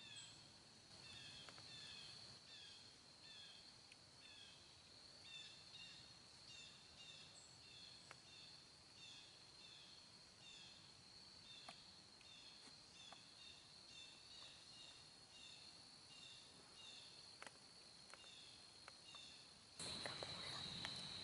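Faint woodland insect drone, a steady high whine, with a quick run of short downward chirps repeating about twice a second and a few faint clicks. Near the end the sound gets louder all at once, with added rustling noise.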